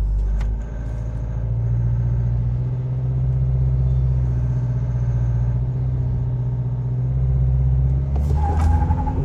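Isuzu MU-X's remapped 1.9-litre RZ4E four-cylinder turbodiesel running with a steady low drone, heard from inside the cabin.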